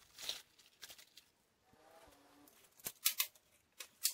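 A few scattered light clicks and metal clinks from hands handling an aluminum square tube, a bolt and tools at a drill press, with a small cluster of them about three seconds in.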